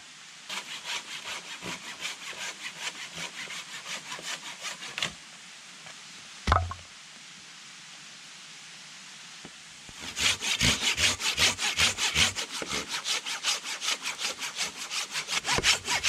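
Hand saw cutting through a dead log, even back-and-forth strokes at about four or five a second. There are two bouts of sawing with a single wooden knock between them; the second bout is louder and faster.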